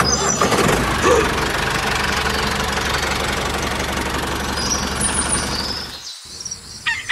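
Small engine of a DIY mini tractor running steadily, then stopping suddenly about six seconds in.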